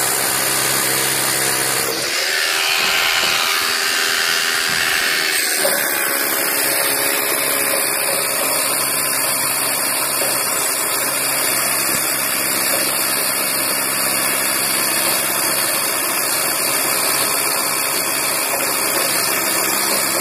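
Corded hammer drill boring into a masonry wall, running continuously. The sound shifts about two seconds in and again a few seconds later, then holds steady.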